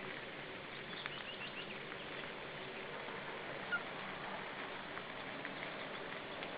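Forest ambience with a steady hiss and faint ticks, with a bird giving a quick run of four short high chirps about a second in and one brief sharp chirp just before the four-second mark.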